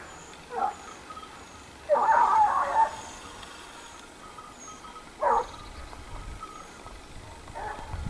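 Running hounds baying as they follow a wild boar's trail. There is a short cry, then a longer run of barking about two seconds in, and single cries around five seconds in and near the end.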